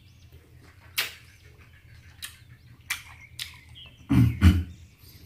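Chewing fishballs with the mouth closed: scattered wet clicks and lip smacks, and about four seconds in a short, low voiced hum, the loudest sound.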